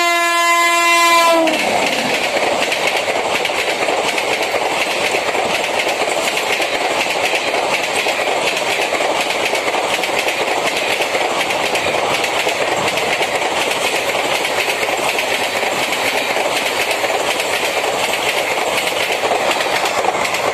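An Indian Railways electric locomotive sounds one horn blast of about a second and a half as it comes past, its pitch dropping as it goes by. Then its train of ICF passenger coaches rushes past at speed in a steady loud run of wheel-and-rail noise.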